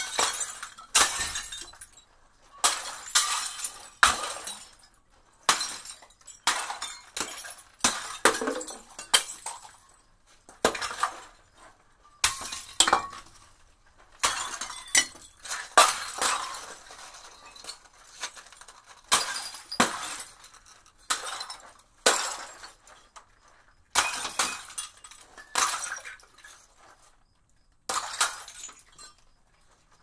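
Glass bottles smashing one after another, some two dozen times, about one every second. Each is a sharp crash followed by shards tinkling as they scatter and settle.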